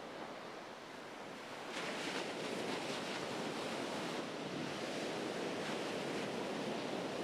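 Ocean surf breaking and washing onto the beach, a steady rushing that grows louder about two seconds in.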